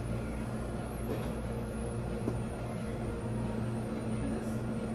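Steady low machine hum from the restaurant's counter equipment, unchanging throughout.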